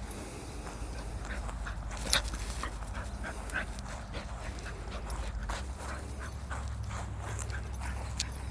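Cattle dog panting hard in quick, even breaths, with one sharp click about two seconds in.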